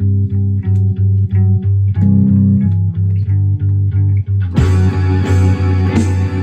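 Bass guitar playing a repeating low riff in evenly spaced notes. About four and a half seconds in, the rest of the band comes in much louder and distorted, with strong regular hits.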